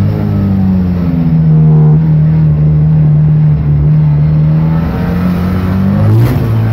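Ford Sierra Cosworth race car's turbocharged four-cylinder engine running hard under load, heard from inside the cabin. Its pitch holds fairly steady, then drops near the end as the driver lifts off, with a few sharp cracks.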